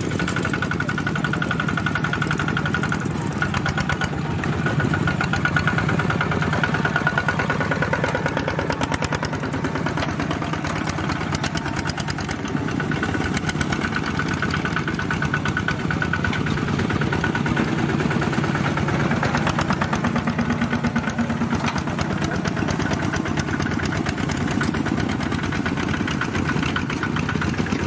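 Single-cylinder diesel engines of several two-wheel walking tractors running steadily with a fast, even chugging beat while pulling loaded trailers.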